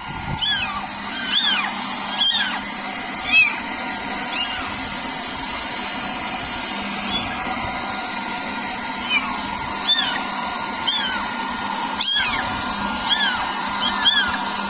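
Kittens mewing again and again in short, high-pitched cries over the steady whir of a hairdryer blowing on them.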